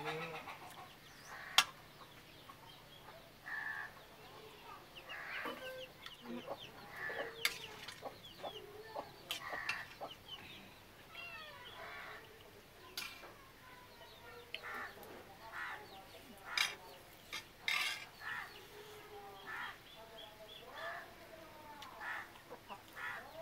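Domestic chickens clucking again and again with short, arching calls. A few sharp clicks and clinks cut in among them, the loudest about a second and a half in.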